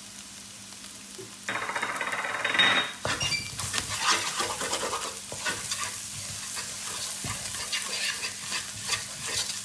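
Scrambled eggs, shrimp and vegetables sizzling in a hot wok. From about three seconds in, a wooden spatula stirs and scrapes the food around the pan in quick, irregular strokes.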